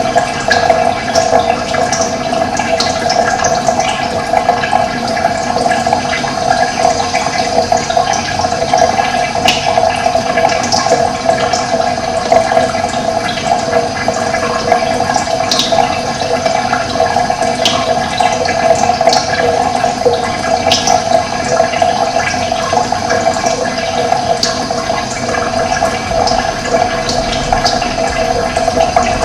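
Steady rushing of running water, with brief high bird chirps scattered over it.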